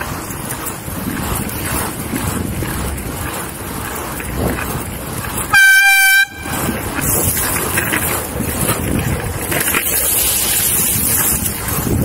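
AirZound pneumatic bicycle horn, fed from a compressed-air bottle, giving one short, very loud blast of a single steady tone with many overtones about halfway through, cut off sharply after under a second: a warning blast to alert a driver at a crossing. Around it, steady wind and rolling noise from the moving board.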